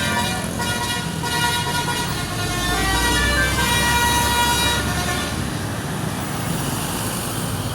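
Bus 'telolet' musical horn (Basuri-type multi-tone horn) playing a tune of changing notes for about five seconds, over the low rumble of the bus's engine as it passes. After the tune stops, only engine and road noise remain.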